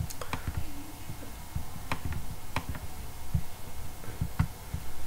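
Computer mouse clicking: about five sharp, irregularly spaced clicks while controls are selected in the editor.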